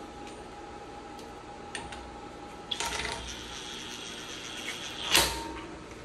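Hand tools working on metal engine parts while the LS engine's oil pickup is being loosened: a drawn-out metal scrape with a steady ringing tone, then a sharp clank just after five seconds, the loudest sound.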